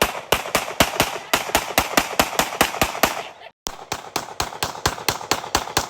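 A rapid, fairly even run of sharp bangs, about six a second, broken by a brief silence about three and a half seconds in.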